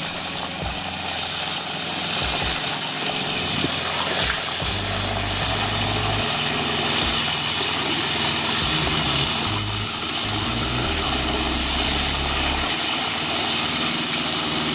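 Hot oil sizzling steadily around a whole butterflied chicken deep-frying in a large wok, with a low rumble coming and going underneath.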